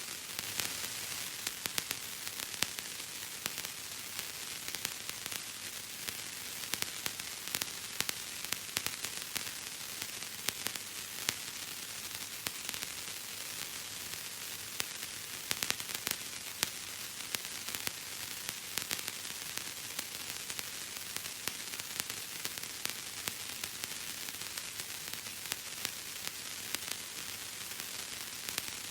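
Bubble wrap being squeezed and popped, a dense run of small sharp pops crackling at irregular intervals over a steady hiss.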